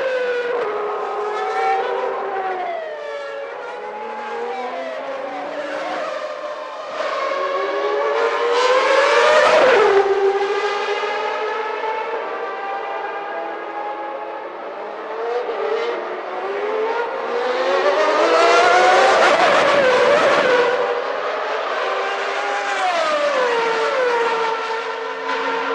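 1991 Formula One cars' naturally aspirated 3.5-litre engines at high revs, the pitch climbing through each gear and dropping sharply at the shifts. Two loud pass-bys come about ten seconds in and again near the twenty-second mark.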